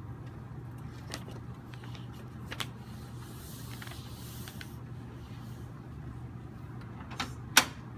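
Quiet room with a steady low hum, broken by a few light knocks and a brief rustle near the middle; a sharp knock near the end is the loudest sound. The harp is not played.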